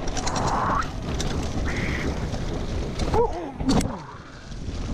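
Mountain bike rolling fast down a grassy trail, heard from a camera mounted on the rider: steady rumbling wind and tyre noise with rattling from the bike. Two short, squeaky yelps come a little after three seconds and again near four seconds.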